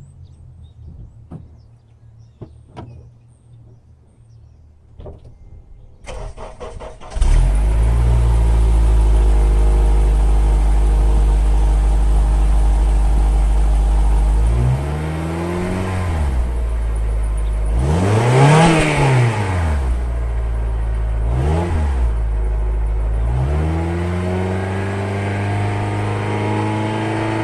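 Honda Element's 2.4-litre four-cylinder engine cold-started through an exhaust with a tractor muffler standing in for the resonator: a few clicks, about a second of starter cranking, then it catches and idles steadily. From about halfway the throttle is blipped four times, the second rev the highest and the last held a little longer.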